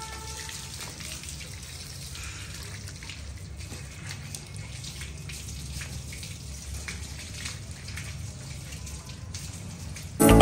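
Water running from a tap and splashing during a dog's bath, a steady rush with faint splashes. Music cuts in right at the end.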